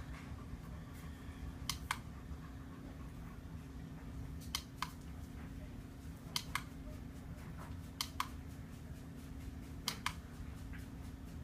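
Plastic push buttons clicked five times, each a quick press-and-release pair of clicks about two seconds apart, as the LED ripple light projector is switched from mode to mode. A steady low hum runs underneath.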